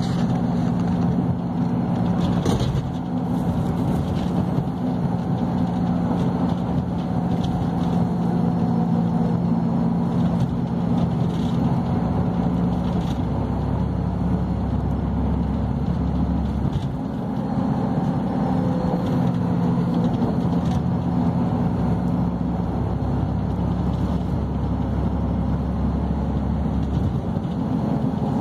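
Engine and road noise from a moving vehicle, heard from inside it: a steady low hum that eases briefly about two-thirds of the way through and then picks up again.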